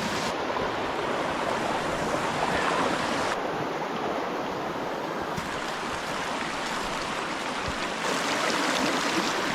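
River water flowing and rushing over rocks: a steady wash of water noise whose tone shifts abruptly a few times.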